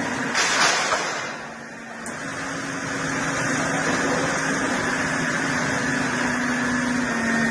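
Sawmill machinery running with a steady hum. A brief loud rush of noise comes about half a second in; the sound then drops away for a moment and builds back to steady running.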